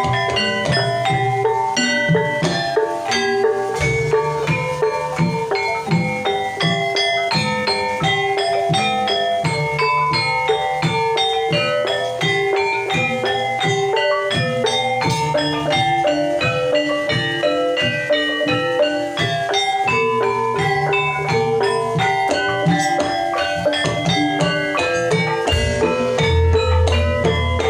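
Javanese gamelan accompaniment: struck metallophones play a dense, fast interlocking pattern of ringing notes over drumming, with a deep low note coming in near the end.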